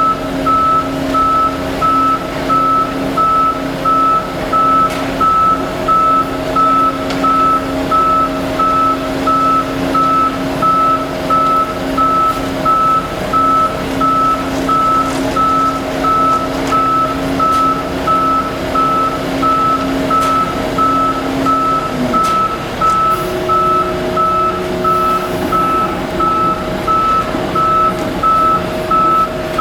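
Concrete mixer truck's reversing alarm beeping steadily about once a second over the drone of its running engine, whose pitch shifts about 22 seconds in.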